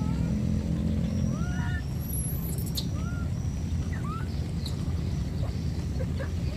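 A wet baby monkey giving short, thin rising-and-falling whimpering cries, four or five of them about a second apart, over a steady low rumble.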